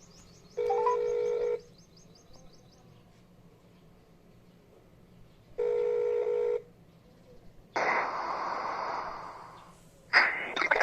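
Telephone ringback tone heard through a phone's speaker: two one-second tones about five seconds apart. About eight seconds in, a loud burst of static hiss fades away over two seconds, and crackling follows near the end: noise on the line.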